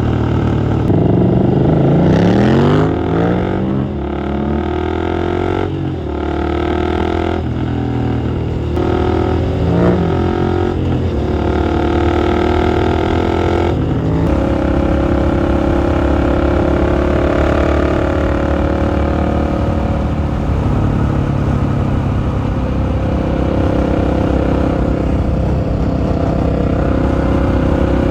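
Husqvarna 701's single-cylinder four-stroke engine pulling hard with rising revs, broken about half a dozen times in the first half by quick gear changes, then holding steady revs at a cruise for the rest.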